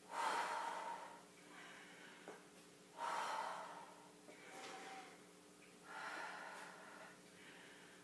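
A woman breathing hard with the effort of reverse-plank leg lifts: three strong exhalations about three seconds apart, and a lighter one between the last two. Underneath is a faint steady hum.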